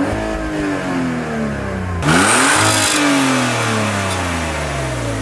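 Car engine revved twice: each time the revs climb quickly and then fall back slowly, with a louder rush at the top of the second rev. The sound cuts off abruptly at the end.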